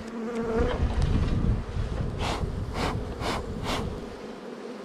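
Honeybees humming steadily around an open hive, with wind rumbling on the microphone early on. A little past halfway, four short rustles come about half a second apart.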